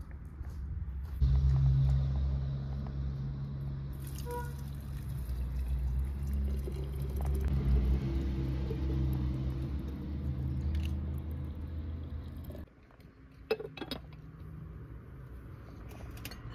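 Water poured in a steady stream from a black metal kettle into a porcelain teapot, filling it onto loose tea. The pour stops sharply about 12 seconds in, followed by a few light clinks.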